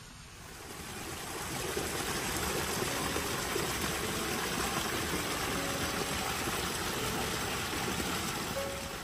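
Small cascade of water running over rocks into a pool, a steady rushing splash that swells in over the first couple of seconds and then holds.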